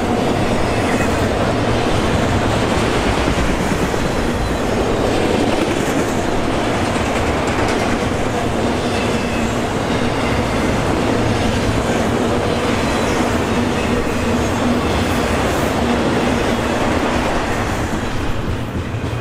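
Freight train rolling past at close range: the steady, loud running noise of steel wheels on the rails as enclosed autorack cars go by, easing slightly near the end as double-stack container cars follow.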